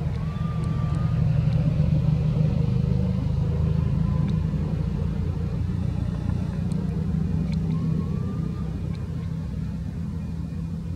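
Steady low rumble of a motor running close by, with two faint short chirps, one about a second in and one near the end.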